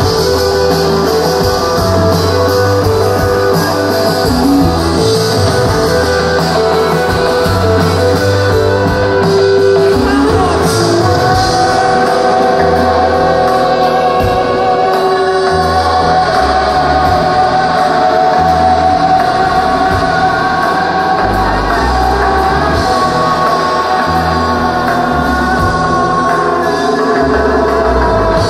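Rock band playing live, with guitars, bass and drums under a sung vocal. It is a continuous full-band passage with long held notes and no breaks.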